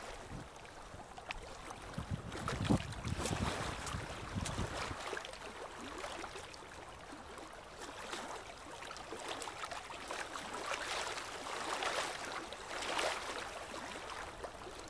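Seashore ambience: a steady wash of sea and wind, a little louder and rougher from about two to five seconds in.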